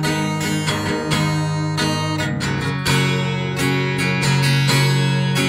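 Acoustic guitar strumming chords in an instrumental passage of a slow song, with no voice.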